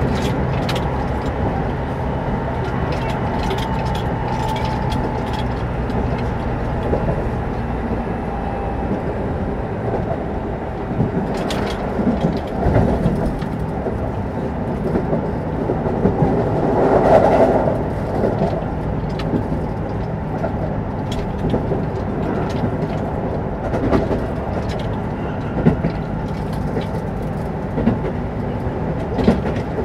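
Keio 9000 series electric train running at speed, heard from inside a motor car: a steady rumble of wheels on rail with scattered clacks over rail joints. In the first several seconds a faint steady whine from the Hitachi IGBT inverter-driven traction motors fades out.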